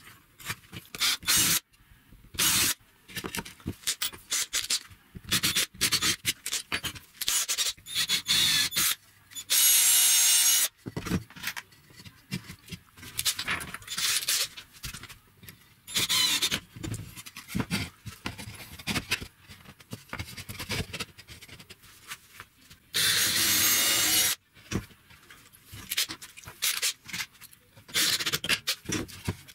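Hand woodworking on plywood: many short, irregular rubbing and scraping strokes, broken twice by a brief steady run of a cordless drill, about ten seconds in and again past twenty-three seconds.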